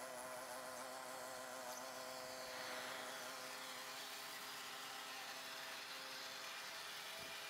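Small petrol engine of a lawn scarifier running steadily at a constant speed, heard faintly.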